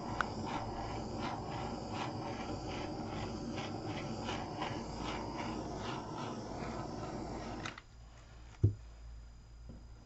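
Handheld torch flame burning steadily as it is passed over wet poured acrylic paint to bring out air bubbles; it cuts off suddenly near the end, followed by a single knock.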